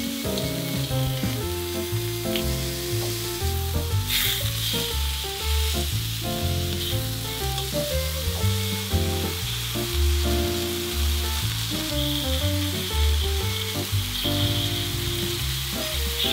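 Hamburger patties of minced beef and pork sizzling on a hot griddle pan, with a louder surge of sizzling about four seconds in. Background music with a steady bass line plays over it.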